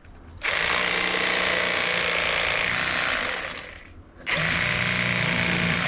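Electric fillet knife switched on about half a second in and running steadily as it slices crappie fillets, then winding down and stopping near four seconds before being switched on again.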